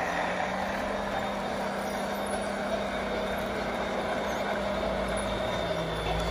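Radio-controlled scale model truck running, with a steady hum that drops a little in pitch near the end.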